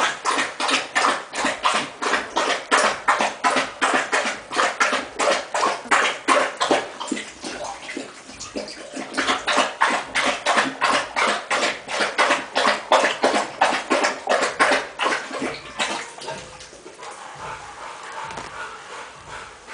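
Rottweiler puppies making rapid rhythmic sounds, about four a second, with a short lull about eight seconds in, fading away over the last few seconds.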